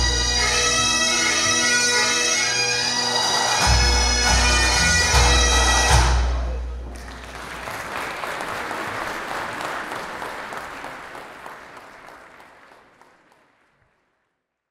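Pipe band of Highland bagpipes and drums playing the final bars of a tune and cutting off together about six seconds in. Audience applause follows and fades away.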